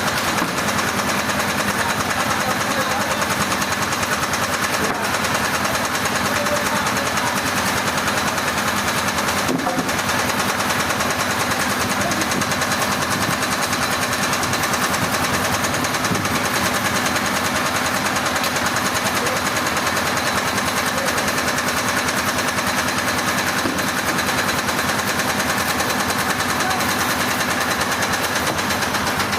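An engine running steadily at a constant speed, with a fast, even pulsing and no change in pitch or load.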